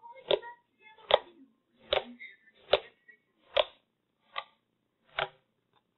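Fingertips poking into a soft liquid-starch slime, each poke giving a short, sharp wet click, seven in a steady rhythm about one every 0.8 seconds.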